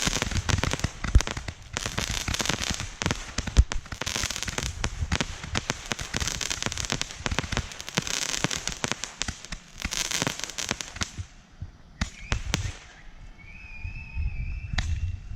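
A rack of Roman candles firing many shots at once: a dense, rapid volley of pops and crackle that thins out about eleven seconds in to a few last scattered pops.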